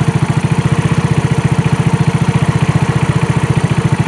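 Trailmaster 150 XRX dune buggy's 150cc four-stroke single-cylinder engine idling steadily with an even, rapid beat, just started on a newly fitted replacement carburetor and warming up.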